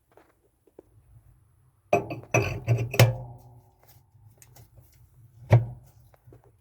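Metal washer parts clanking as the tub is lined up on the tub block: a burst of clattering knocks about two seconds in, one of which rings on briefly like struck sheet metal, then a single hard knock near the end.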